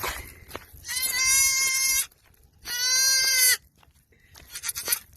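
Goat kid bleating twice, two long, steady, high calls of about a second each, with a few light clicks and rustles before and after.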